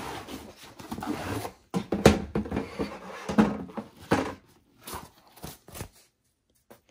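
Cardboard graphics-card box being opened and handled: rustling, sliding and soft knocks as the inner box and its foam-lined lid are moved, stopping about six seconds in.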